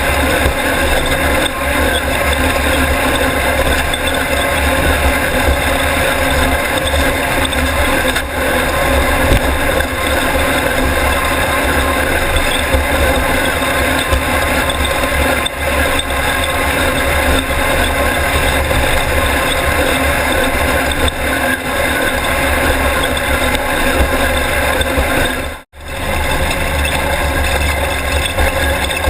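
Air-cooled VW 1600 engine of a Class 1600 off-road race buggy running steadily during a lap. The sound drops out for an instant near the end.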